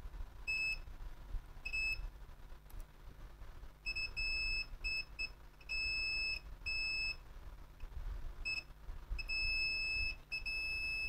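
Multimeter continuity buzzer beeping on and off in irregular short blips and longer tones as meter probes touch test points on a laptop motherboard, ending in one held beep.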